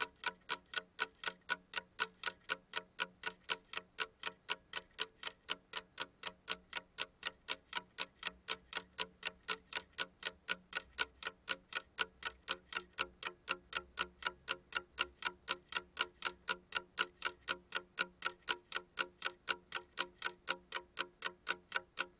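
Wind-up mechanical alarm clock ticking steadily, about four ticks a second, alternating louder and softer like a tick-tock.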